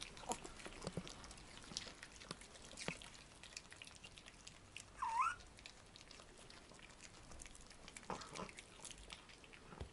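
A small dog gives one short, high whine that rises and dips, about five seconds in, against faint scattered clicks and smacks of small dogs chewing pieces of bell pepper.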